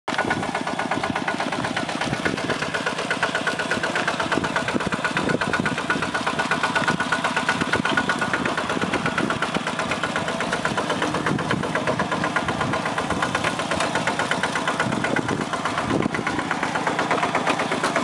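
Two-wheel walking tractor's single-cylinder engine running steadily with a rapid, even beat.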